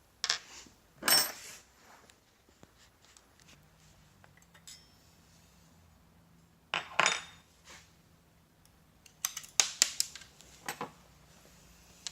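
Hand tools and small metal parts clinking and clattering: a couple of sharp metallic knocks at the start, another around the middle, and a quick run of clinks toward the end.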